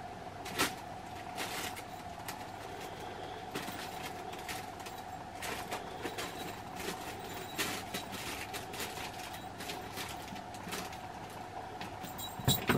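A cat scrambling in and out of a crinkly fabric play tunnel on a hard floor: irregular rustling, taps and light knocks, with a sharper knock about half a second in and a flurry near the end. A steady hum runs underneath.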